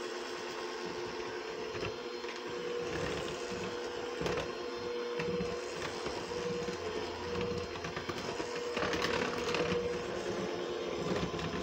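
Handheld electric mixer running steadily on low speed, its beaters churning cake batter in a bowl.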